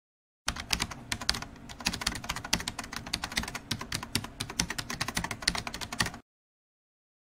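Rapid, irregular clicking of typing on a computer keyboard, starting abruptly about half a second in and cutting off suddenly near the end.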